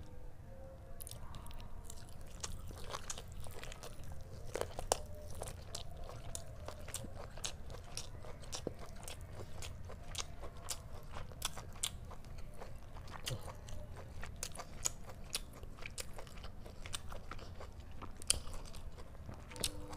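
A person biting and chewing chicken leg curry, with many quick, sharp mouth clicks and smacks starting about a second in.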